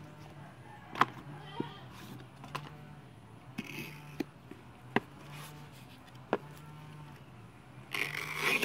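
A utility knife working on a used motorcycle tire: scattered sharp clicks and taps as the blade is set against the rubber and handled, then a louder rasping cut as the blade is pushed through the tire near the end. A faint low hum sits underneath.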